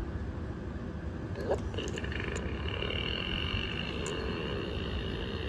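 Furby Connect toy's electronic sounds: a short rising chirp with a few sharp clicks about a second and a half in, then a steady high tone held for several seconds, over a constant low rumble.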